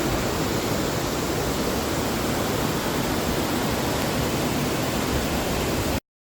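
Waterfall: a steady rush of falling water that cuts off suddenly near the end.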